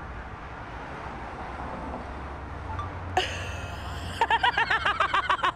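Low steady outdoor street hum. About three seconds in comes a sudden sharp sound, then a woman breaks into quick, rhythmic giggling, about seven short laughs a second.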